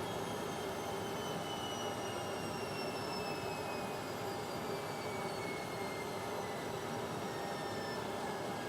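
Indesit washing machine on its high-speed spin: a steady rushing hum from the spinning drum, with a high motor whine that slowly falls in pitch as the spin speed starts coming down from 1200 rpm.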